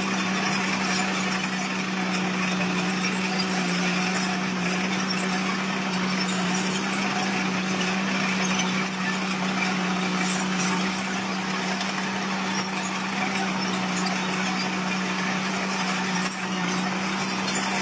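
Diesel engine of heavy earthmoving machinery running steadily: a constant low hum with a hissing, rattling noise above it.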